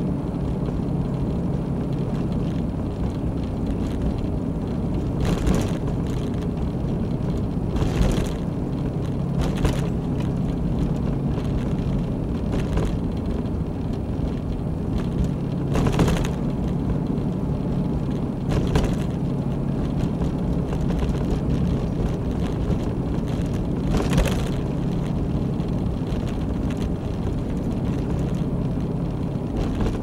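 Car engine and road noise from inside a moving car: a steady low drone with a short thump every few seconds.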